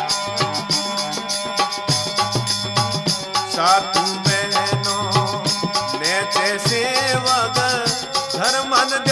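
Rajasthani devotional chirja (folk hymn) music: steady held tones over a regular drum beat, with a voice singing wavering, gliding melodic lines from about a third of the way in.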